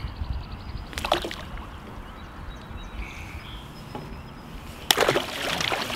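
A northern pike being released by hand from a kayak into the lake: a short noise about a second in, then a louder splash lasting about a second near the end as the fish goes into the water.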